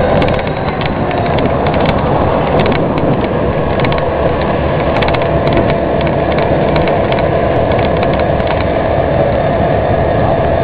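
A vehicle engine running steadily: a constant hum over an even mechanical noise.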